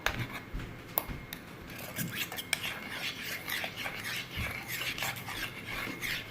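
A spoon stirring in a cup, with repeated light clinks and scrapes against its sides as the slime activator solution is mixed.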